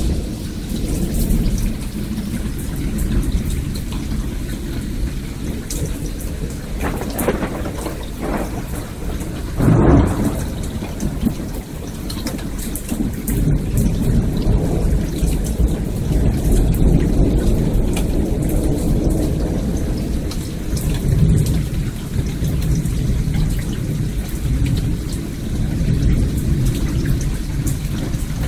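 Thunderstorm: steady rain with thunder rumbling low throughout, and louder rolls of thunder about seven to ten seconds in, the strongest near ten seconds.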